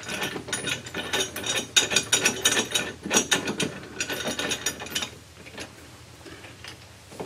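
Rapid metallic clicking and clinking as a steel nerf bar is fitted and bolted to its mounting bracket under a truck cab. The clicking stops about five seconds in.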